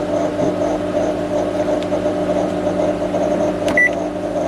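Commercial microwave oven humming steadily, with one short high beep from its keypad near the end as a key on the rewired touch panel is pressed.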